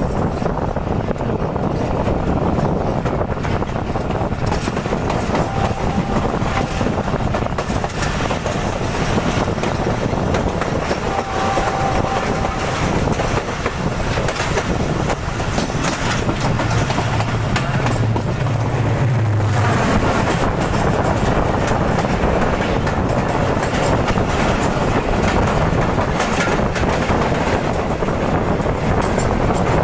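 Passenger train running on the track, its wheels clattering steadily over the rails. A deeper hum swells for a few seconds past the middle.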